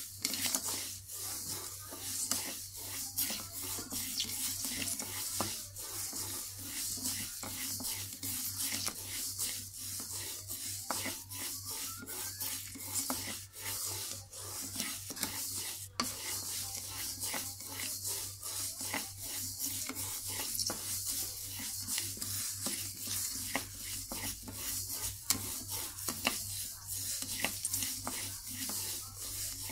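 Wooden spatula stirring and scraping raw glutinous rice grains around a dry wok without oil. It makes a continuous rasping shuffle with many small grain clicks. This is the slow low-heat dry-roasting of sticky rice for toasted rice powder (khao khua).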